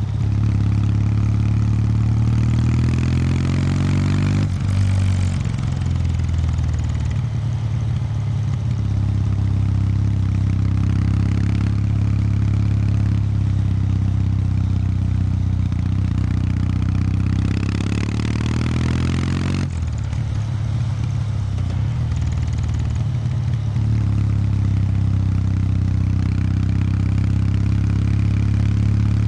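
Kawasaki W800 Street's air-cooled parallel-twin engine through its stock exhaust while riding: the note climbs, drops off sharply about four seconds in, runs steadily, falls away again about two-thirds through, then builds once more.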